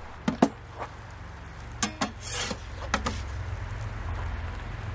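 A few light knocks and clatters as the metal door of an Ooni Fyra pizza oven is taken off and a pizza is slid out on a peel, with a short scrape about two seconds in. A low steady rumble runs underneath.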